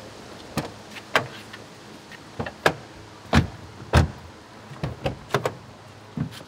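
Front doors of a BMW E46 3 Series saloon being unlatched and pulled open: a run of about a dozen sharp clicks and clunks, the two loudest near the middle.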